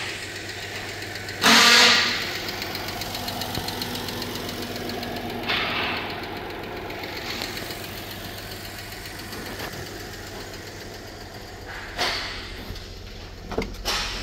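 Hyundai Tiburon's 2.7-litre V6 idling steadily. A loud, short burst of noise comes about a second and a half in, a smaller one around six seconds, and a few sharp clacks near the end.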